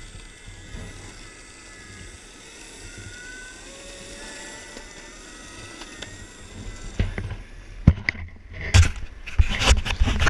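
Electric longboard rolling on asphalt: a steady wheel rumble with a faint electric motor whine that rises and falls in pitch. From about seven seconds in, loud irregular knocks and rubbing as the camera is grabbed and handled.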